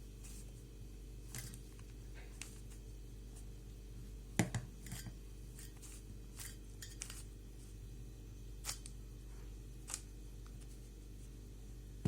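3×3 Rubik's cube being turned by hand: irregular small plastic clicks and clacks as its layers rotate, the sharpest about four and a half seconds in, over a steady low hum.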